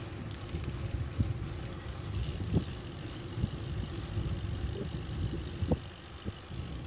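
Wind buffeting the microphone of a bicycle-carried camera, over a low rumble of the tyres on the asphalt cycle path, with a few sharp knocks as the bike goes over bumps.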